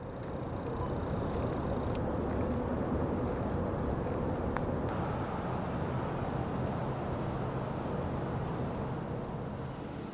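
Insect chorus, a steady high-pitched drone, over a low, even background rumble.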